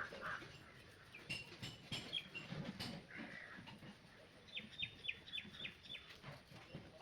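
Faint birds chirping: short high notes scattered throughout, with a quick run of about six notes a little past the middle. A few light clicks are also heard.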